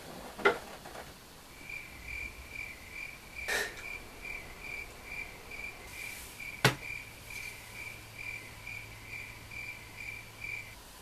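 Insect chirping: a high, evenly pulsed chirp of about three pulses a second, starting about two seconds in and cutting off abruptly near the end. A sharp knock comes about half a second in, and another sharp click a little past the middle.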